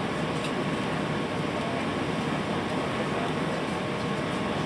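Steady cabin noise inside an Airbus A380 on approach to landing: an even rush of engine and airflow noise with a faint steady high tone running through it.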